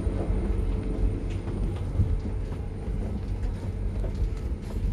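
Steady low rumble with a constant hum: the machinery background noise of an airport jet bridge.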